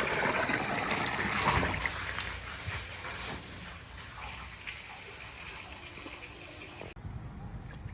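Water pouring into a pool, a heavy gushing flow that weakens after about two seconds to a quieter running trickle.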